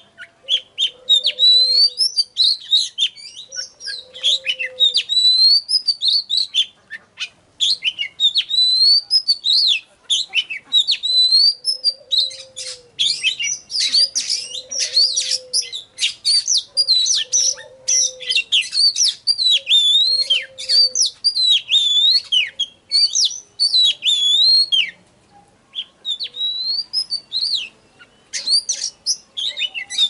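Oriental magpie-robin singing: repeated high whistled phrases of rising and falling notes, with a dense run of rapid chattering notes through the middle and short pauses near the end. A low hooting note repeats every few seconds underneath during the first two-thirds.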